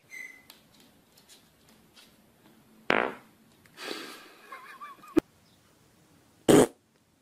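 Brief fart noises, loudest in a short blast about six and a half seconds in; an earlier loud one comes about three seconds in.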